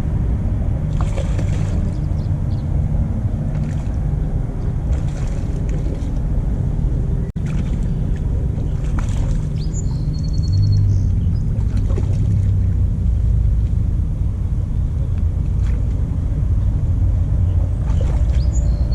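Low, steady rumble of wind buffeting the microphone by a river, with short high chirps twice, about halfway through and near the end.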